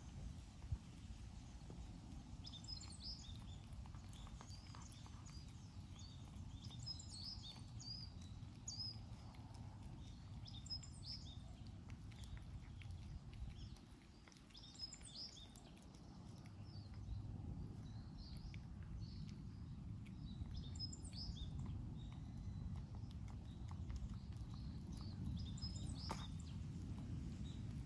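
A cat chewing and crunching its food, faint clicks over a steady low outdoor rumble, with short high chirps now and then.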